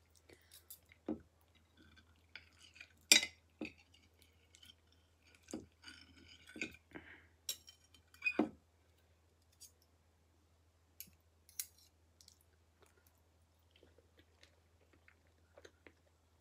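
Metal knife and fork clinking and scraping on a ceramic plate while cutting fried egg and bacon, with quiet chewing between the clinks. The clinks are scattered and sharp, the loudest about three seconds in, and they thin out in the second half.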